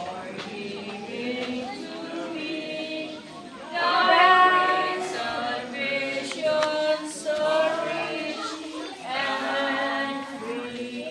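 A group of voices singing together, choir-style, in long held phrases, swelling loudest about four seconds in.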